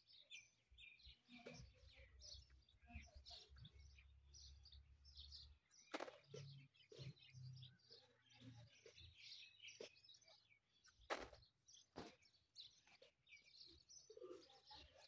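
Faint, high bird chirps repeated many times over, with three sharp clicks about six, eleven and twelve seconds in.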